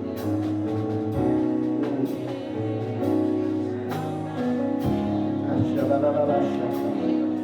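Gospel church music: keyboard playing long held chords under light cymbal taps, with a voice rising over it about six seconds in.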